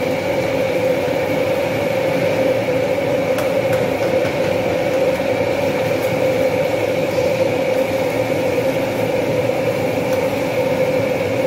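Commercial gas wok burner running at full flame under the wok: a loud, steady roar with a hum in it. A few faint clinks of the ladle against the wok.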